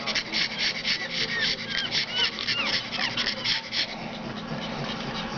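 Pug puppies about three weeks old giving short, high squeaks, over a fast, rhythmic rubbing that stops about four seconds in.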